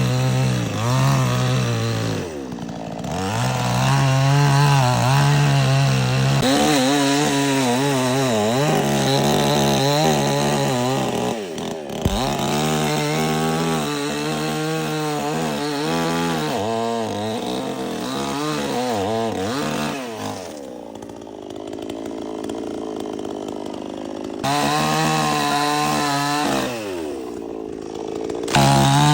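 Two-stroke petrol chainsaw running at full throttle while cutting wood, its engine note wavering as the chain bites and the load changes. The revs fall away several times, longest for a few seconds about two-thirds through, and climb back up near the end.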